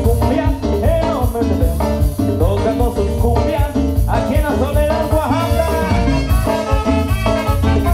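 Live cumbia played by a dance orchestra, with a steady beat in the bass and a melody line above it.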